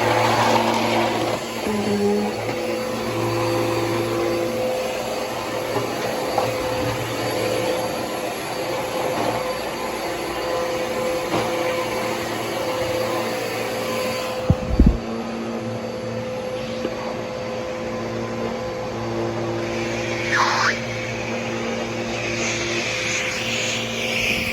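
Bissell PowerForce Helix upright vacuum cleaner running steadily, its motor holding a constant hum with a steady tone. A short low thump comes about 15 seconds in, and a brief scratchy brushing noise near the end.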